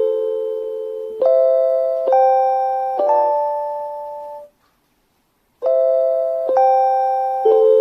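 JR Hokkaido station guidance chime for visually impaired people: an electronic chime playing a short tune of bell-like notes, each struck and fading, about one a second. It cuts to silence for about a second near the middle, then starts the tune again.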